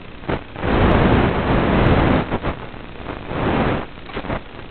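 FPV 3D quadcopter's propellers rushing in two loud bursts as the throttle is punched: a long one about a second in and a shorter one near the end, with a few short knocks between.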